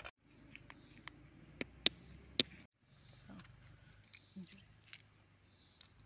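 Walnuts being cracked open with a small stone on a stone base: a series of sharp knocks and shell cracks, the two loudest about two seconds in, then fainter clicks of the broken shells being handled.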